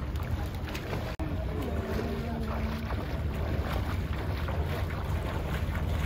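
Pool water rumbling and sloshing against a phone microphone, with wind-like buffeting on the mic. The sound cuts out for an instant about a second in.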